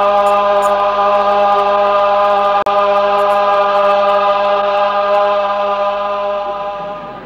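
A crowd chanting in unison on one long held note, with a brief dropout a little over two and a half seconds in, fading away near the end.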